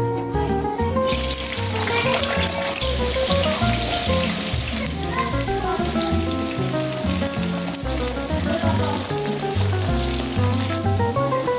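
Food sizzling as it fries in a hot pan, starting about a second in and stopping near the end, over background music.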